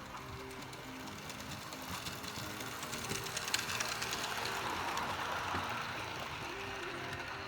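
HO-scale model train running past on track, its small motor whirring and wheels clicking, swelling louder in the middle and fading again, over soft background music.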